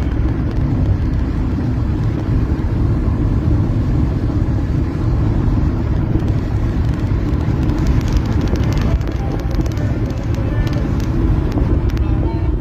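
Steady road and engine noise heard inside a car at highway speed, strongest in the low end, with a scatter of small clicks around eight to eleven seconds in.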